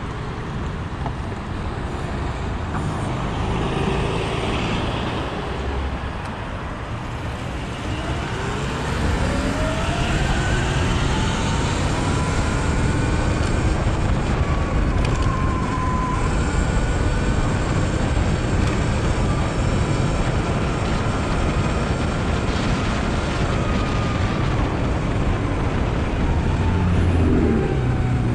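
Sur Ron electric dirt bike riding through city traffic: steady road and wind noise, with a whine that rises and falls in pitch as the bike speeds up and slows, among passing traffic.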